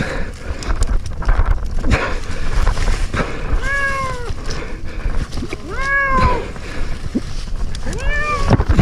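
Domestic cat stranded high in a tree meowing three times, each a drawn-out cry that rises then falls in pitch, over constant rustling noise.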